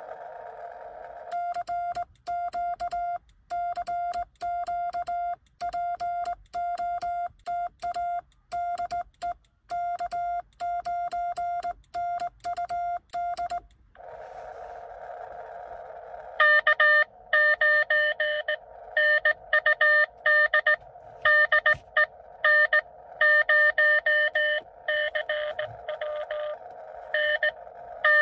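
Morse code from a Xiegu X6100 transceiver's speaker. First comes the radio's clean sidetone: steady keyed beeps for about twelve seconds as CW is sent on a home-brew cootie sideswiper key. After a couple of seconds of receiver hiss, a louder, slightly lower-pitched CW signal comes in over the band noise, an incoming station being copied.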